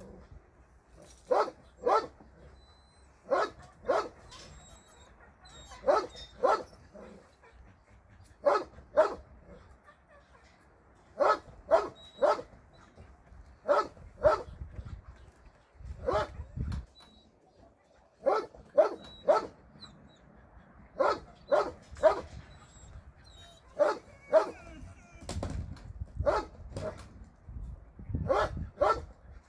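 A dog barking repeatedly, in clusters of two or three sharp barks every two to three seconds.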